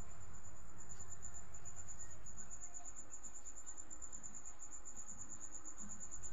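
A cricket chirping in a steady, fast, high-pitched trill.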